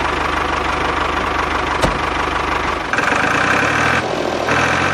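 Tractor engine idling steadily with an even pulsing beat, just after starting. A single sharp click comes just under two seconds in, and the engine note changes about three seconds in and again near the end as the tractor moves off with its trailer.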